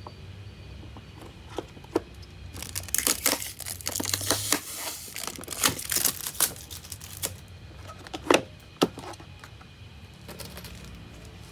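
Packaging material being torn and crumpled by hand, in a long stretch of rustling through the middle, with a few sharp knocks near the end.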